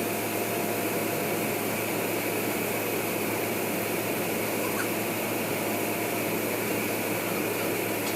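A machine running steadily, with a constant low hum under an even noise.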